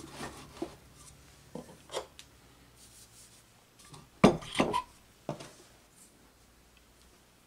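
Wooden boards shifted on a wooden workbench and an electric motor rotor set upright on them, giving a few scattered knocks and clinks, the loudest about four seconds in.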